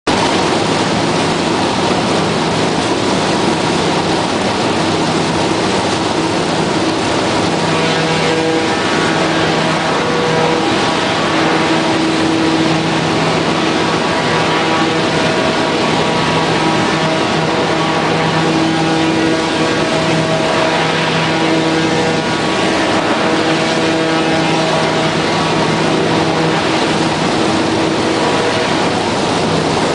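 Trillium OSB strand screen running, a loud, steady mechanical rush as oriented-strand-board wood strands tumble through it. A machine hum rises and falls over it from about a quarter of the way in.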